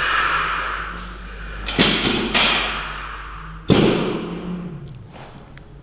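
Sharp thuds from a chiropractic adjustment: three close together about two seconds in, then a single louder one near four seconds.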